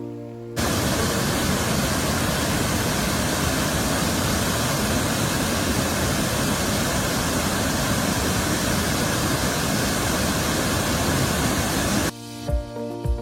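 A waterfall's steady rush of falling water, cutting in abruptly about half a second in and stopping just as abruptly about a second before the end, when background music returns.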